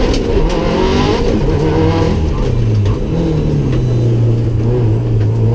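Rally car's engine heard from inside the cabin, running at speed. Its pitch dips about three seconds in, then holds steady, with a few sharp clicks near the start.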